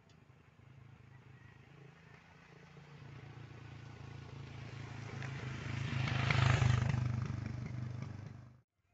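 A motor vehicle's engine growing steadily louder as it comes near, loudest about six and a half seconds in as it passes close, then cut off abruptly near the end.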